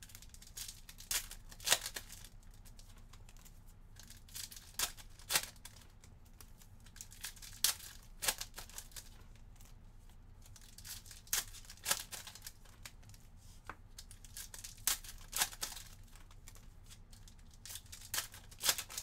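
Foil trading-card packs being torn open and crinkled by hand: irregular sharp crackles and rustles of the wrappers, with the cards inside being handled.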